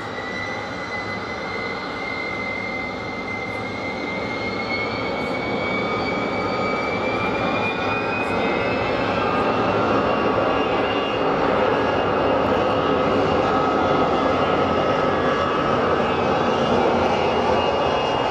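Fokker 100's twin Rolls-Royce Tay turbofans spooling up to takeoff power, a whine rising in pitch over the first several seconds. Then a steady jet roar grows louder as the airliner accelerates down the runway on its takeoff roll.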